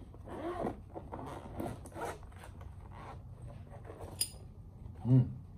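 Zipper of a black padded carrying case being pulled open in a series of short rasping pulls, followed by a sharp click about four seconds in. A brief murmur from a man's voice comes near the end.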